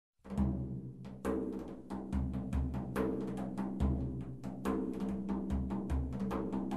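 Instrumental music begins a moment in, with quick, dense percussive strikes over steady low notes.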